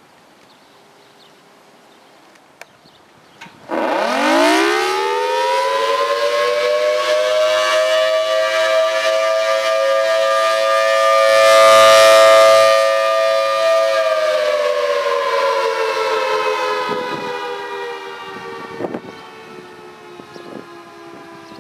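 Federal Signal Thunderbolt 1003 outdoor warning siren sounding the noon whistle, the town's daily midday signal rather than an alarm. About four seconds in it starts up, its pitch rising quickly to a steady two-toned wail that swells once as the rotating horn sweeps round. From about two-thirds of the way through it slowly winds down in pitch.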